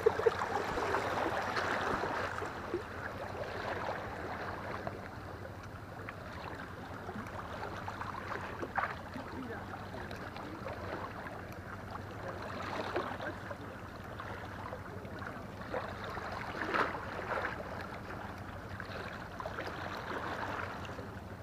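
Steady wash of sea water against breakwater rocks, with a faint low hum underneath and two short clicks.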